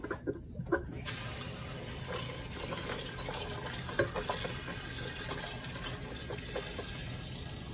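Kitchen tap running into a pot of peanuts in their shells, filling it with water; the stream starts about a second in and runs steadily.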